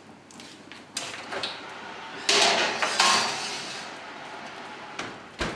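An oven door is opened with a knock, and a pie dish is slid onto the wire oven rack with a scrape and a rustle of baking paper. A heavier thud near the end fits the oven door shutting.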